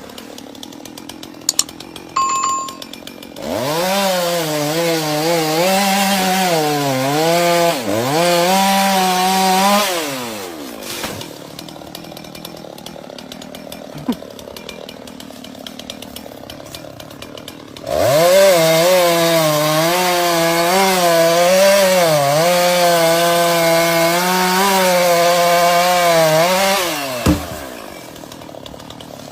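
Chainsaw revving up to full throttle and cutting wood, its pitch wavering under load, for about seven seconds. It drops back, then revs up again for a second cut of about nine seconds starting over halfway through.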